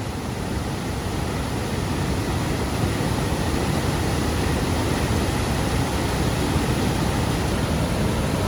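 Steady roar of a large waterfall's rushing water, an even rushing noise heaviest in the low end that grows slightly louder over the first couple of seconds.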